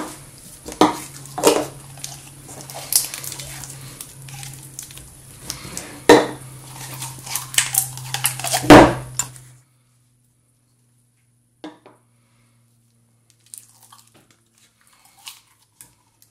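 Kitchen utensils and containers clinking and knocking against a bowl, a string of sharp irregular clicks over a low steady hum. About nine seconds in, the sound drops away almost entirely, leaving only a few faint clicks.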